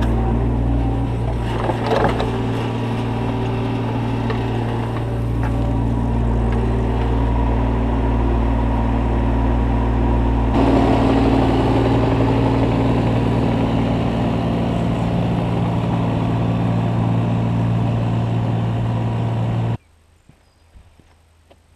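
Kubota U25 mini excavator's diesel engine running steadily under load as it digs and loads earth, with a clank about two seconds in. The sound drops away abruptly near the end.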